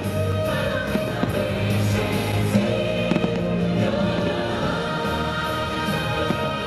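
Fireworks show soundtrack with singing plays continuously, with the sharp bangs of aerial fireworks shells bursting overhead at irregular moments.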